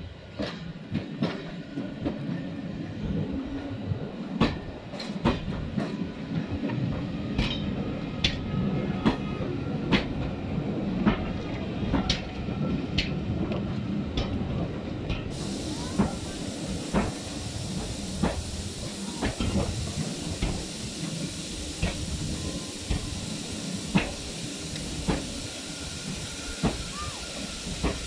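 Heritage railway passenger coaches rolling slowly past close by: a steady low rumble with wheels clacking over the rail joints about once a second. A hiss of steam from the approaching steam locomotive rises about halfway through.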